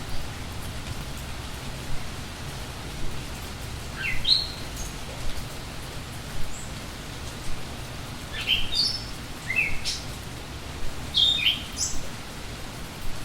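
Steady rain hissing, with small songbirds calling in short, quick upward-sweeping chirps. There is one chirp about four seconds in and a cluster of them in the last five seconds.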